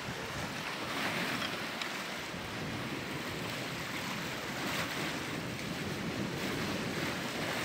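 Sea water rushing and splashing past the hulls of a sailing catamaran under way, a steady wash that swells and eases, with wind buffeting the microphone.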